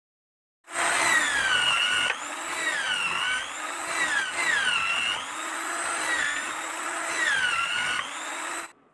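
Corded electric hand drill mounted in a drill press stand, running and boring holes into a block of wood. It starts about a second in, and its whine drops in pitch and recovers four or five times as the bit is fed into the wood under load, then cuts off suddenly near the end.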